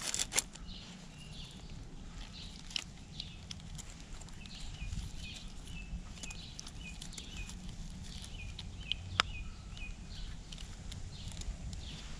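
Outdoor background noise: a steady low rumble with scattered clicks and knocks, one sharp knock about nine seconds in. A run of short high chirps, about two a second, sounds through the middle.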